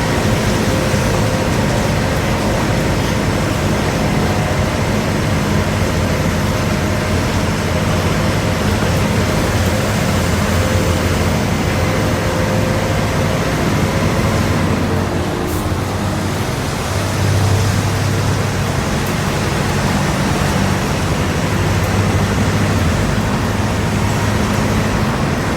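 Volkswagen 15.190 EOD bus's diesel engine running under way, with steady road noise. The level dips briefly about sixteen seconds in, then the engine note comes back stronger.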